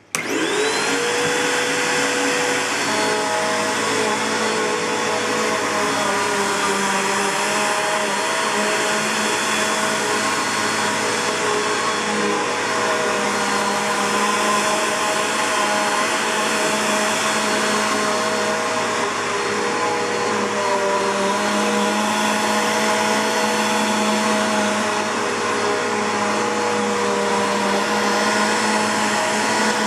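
A Bissell PowerForce bagged upright vacuum cleaner, with a Midea-built motor, switching on: the motor whines up to speed within about a second, then runs steadily and loudly.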